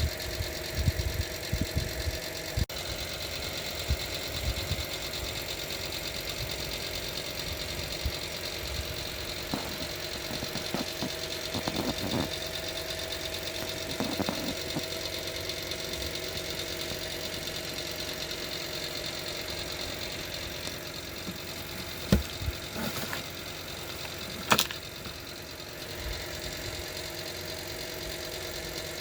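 Panasonic NA-F65B5 washing machine running with a steady mechanical hum. There are a few sharp knocks in the second half, the two loudest about two seconds apart.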